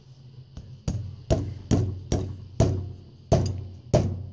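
Hammer striking the end of a stiff spring to seat it in its hole in the steel shoes of a Noram GE centrifugal clutch. About seven sharp metallic strikes come roughly two a second, each ringing briefly.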